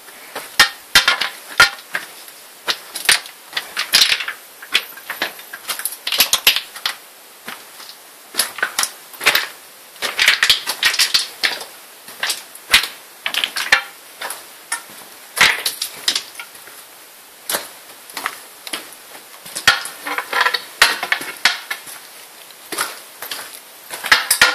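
Irregular clicks, knocks and scrapes of a person crawling through a tight rock passage in a cave: boots, hands and gear against rock, coming in clusters with short pauses between.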